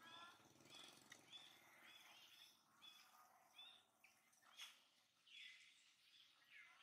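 Faint, high chirping calls from small animals, repeated every half second or so, with two downward-sliding calls near the end.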